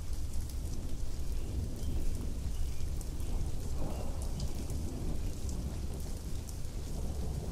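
Heavy rain pouring steadily, with scattered drops ticking sharply, over a continuous low rumble of thunder that swells briefly about four seconds in.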